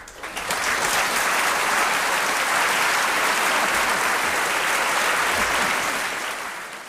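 A theatre audience applauding at the end of a live song performance. The applause builds over the first second, holds steady, then dies away near the end.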